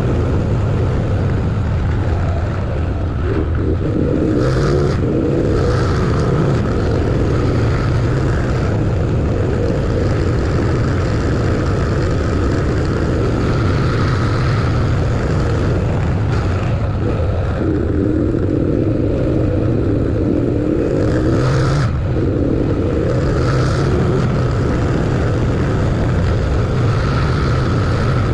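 A car driving on a road: a steady engine drone with tyre and road noise, and a few short louder rushes about four seconds in and again about twenty-one seconds in.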